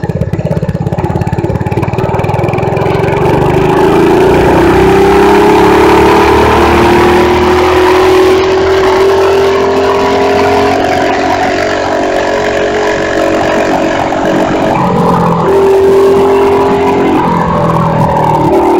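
Mini bike's Predator 212cc single-cylinder engine running hard as the bike rides down the road: the pitch climbs over the first few seconds as it gathers speed, then holds steady near its top speed. About fifteen seconds in the pitch dips briefly and climbs again.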